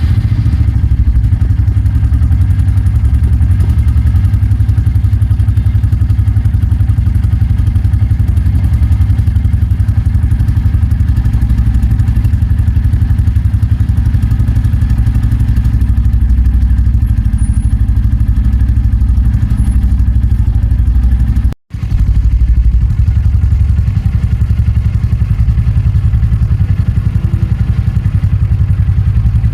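Royal Enfield 350cc single-cylinder motorcycle engine idling steadily just after starting, its exhaust note loud and evenly pulsing. The sound cuts out for a moment about two-thirds of the way through, then carries on.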